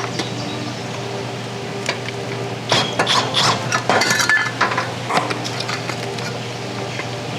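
Scattered clinks and knocks, like hard objects being handled, most of them bunched from about three to four and a half seconds in, over a steady low hum.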